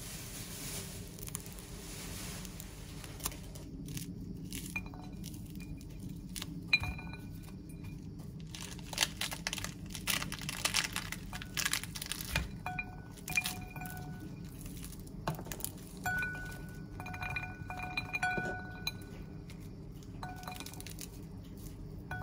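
Cutlery clinking and scraping on plates and glassware during a meal, with many separate sharp clicks. A bell-like ringing tone comes and goes several times.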